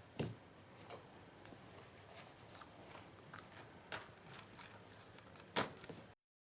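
Faint, scattered clicks and ticks, with a sharper, louder click near the end.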